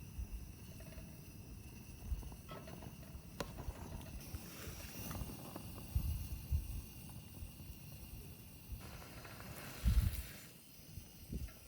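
Wind buffeting the microphone in irregular low gusts, with a few faint clicks and knocks.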